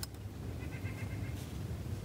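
An animal's rapid chattering call: one burst of about ten quick notes a second, lasting under a second, over a steady low rumble. A short sharp click comes right at the start.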